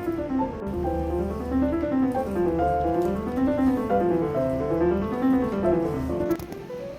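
Background piano music, quick runs of notes rising and falling in repeated waves.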